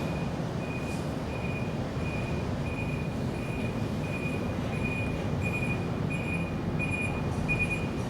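A steady low rumble with a short, high-pitched chirp or beep repeating evenly, a little under twice a second.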